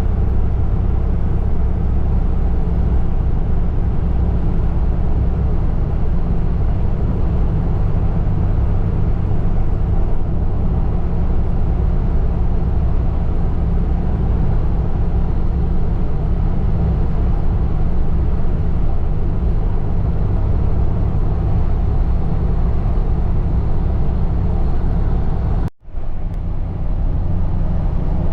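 Steady engine and road noise inside a moving car's cabin, a low rumble with an even hiss, briefly cut off for a split second near the end.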